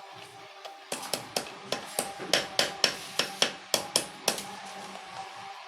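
A rapid series of sharp metal-on-metal taps, about three a second, with a ringing tone under them: a gear being tapped home onto its shaft in a Hero Splendor motorcycle gearbox during reassembly.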